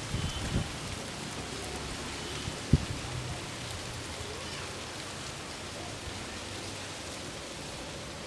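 Steady wind noise, with low thumps of gusts buffeting the microphone in the first second and one sharper thump about three seconds in.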